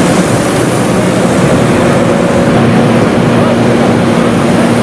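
Fire tender's engine and pump running steadily to drive a high-pressure jet of sanitizer from a roof-mounted water monitor. A continuous rush of noise lies over a steady engine hum.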